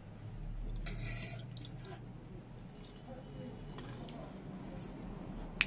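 Filling pani puri by hand: a spoon working soft potato filling and tamarind water into a crisp puri shell, with small wet squishy and dripping sounds. There is a short crisp crackle about a second in and a sharp click near the end.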